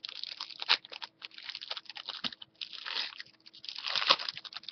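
Foil wrapper of a Magic: The Gathering booster pack crinkling and tearing as hands rip it open, in irregular crackling bursts with one sharp crackle a little under a second in and louder crinkling stretches near the end.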